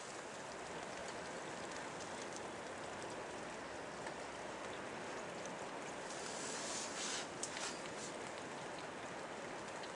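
Merced River flowing, a steady rush of moving water. A short louder patch with a few sharp ticks comes around seven seconds in.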